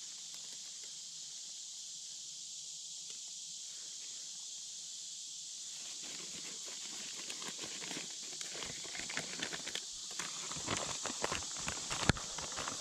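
Footsteps and rustling through leafy forest undergrowth, starting about halfway in and thickening toward the end, as mushrooms are picked by hand and the picker walks on. There is a sharp click near the end, all over a steady high-pitched hiss.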